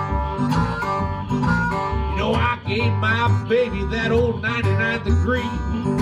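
Delta blues instrumental break on acoustic guitar in open G tuning, with blues harmonica at the start and bending notes through the middle, without singing.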